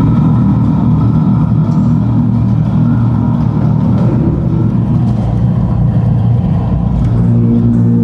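Electric bass guitar played with the fingers through a loud stage rig, a heavy, low, distorted-sounding bass line during a metal band's soundcheck.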